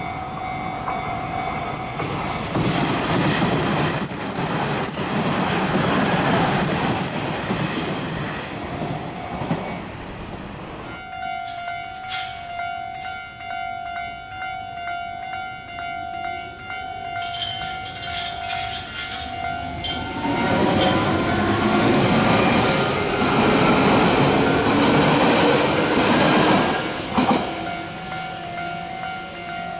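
Japanese level-crossing warning bell ringing steadily while Hanshin electric trains pass over the crossing twice, about two and about twenty seconds in, each a few seconds of loud wheel and running noise. A rising whine is heard as the second train comes through.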